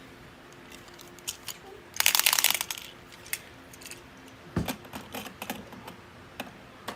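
Plastic clicks and clatter from handling a DX Kamen Rider Build Driver toy belt and its bottle parts: a quick run of clicks about two seconds in, scattered single clicks, and a dull knock midway.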